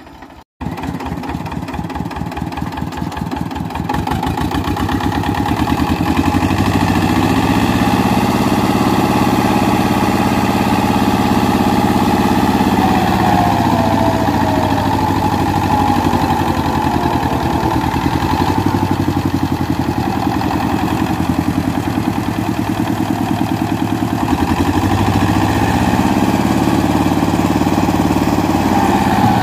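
Diesel tractor engines working hard under load: an Eicher 364 hauling a loaded trolley out of a muddy ditch while an Escort 435 tows it. The engines grow louder about four seconds in and then run steadily under strain.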